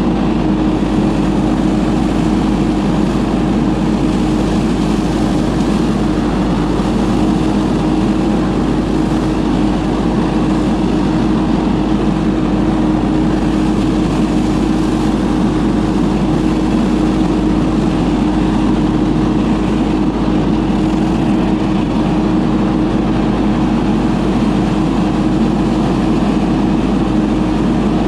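Ferris FB2000 Hurricane stand-on debris blower running steadily, its Briggs & Stratton Vanguard engine and fan holding one even pitch over a constant rush of blown air.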